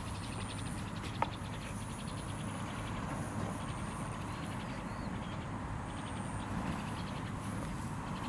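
Steady outdoor background: a low rumble with faint, high-pitched insect trills every second or two, and a single sharp tick about a second in.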